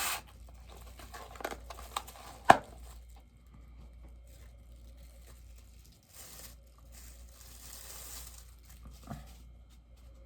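Packaging rustling and crinkling as a bobblehead is unwrapped by hand, with one sharp click about two and a half seconds in and a few softer ticks.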